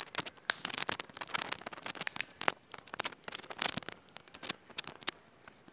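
Rustling and irregular light clicks of hands, clothing and body shifting on a treatment table during a chiropractic adjustment, dense at first and thinning out after about four seconds.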